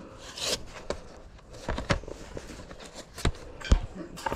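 Handling noise: scattered knocks and clicks with a brief rustle about half a second in, as items are picked up, moved and set down. The loudest is a sharp knock a little before the end.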